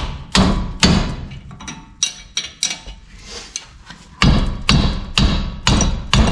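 Hammer striking metal, about ten sharp blows in uneven groups, each ringing briefly, with a pause about three seconds in.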